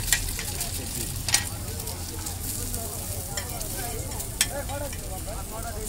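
Egg and masala sizzling on a hot flat steel griddle, while a metal spatula scrapes the pan and strikes it with a few sharp clinks, the loudest about a second and a half in and again past the four-second mark.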